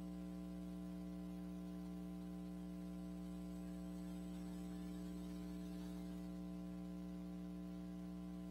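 Steady electrical mains hum picked up through the sound system: a constant low buzz made of a few held tones that does not change.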